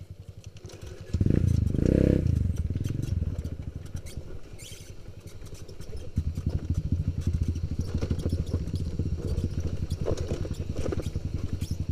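Kawasaki KLX 150 G's single-cylinder four-stroke engine ticking over, revved hard about a second in, then running steadily under throttle as the bike rides along a dirt track.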